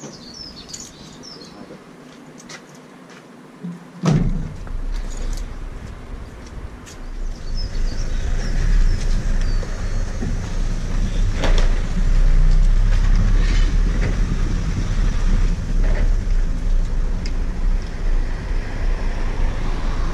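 Van driving off, heard from a camera mounted on its outside. A sharp thump comes about four seconds in, then a low engine and road rumble that grows louder as the van pulls away.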